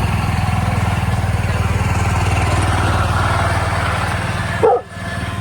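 An engine running steadily with a fast, even beat. A brief louder sound comes near the end, followed by a sudden drop in level.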